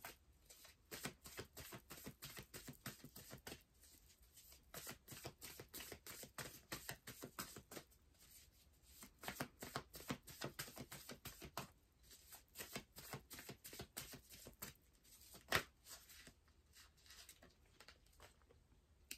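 Tarot deck being shuffled in the hands: a faint, quick run of soft card clicks several times a second, with one louder click late on.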